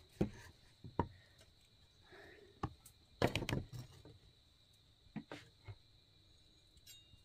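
Large kitchen knife slicing tomatoes and knocking on a chopping board: irregular sharp knocks, with a quick run of several strokes in the middle.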